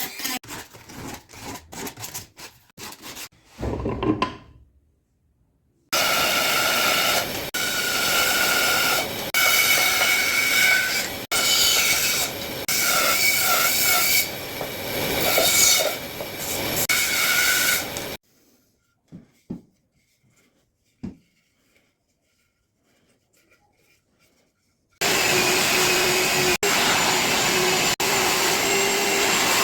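Woodworking tools on iroko wood: short, uneven rubbing strokes at first, then a loud power tool running with a shifting pitch for about twelve seconds. After a near-silent stretch with a few light knocks, a power tool runs steadily near the end.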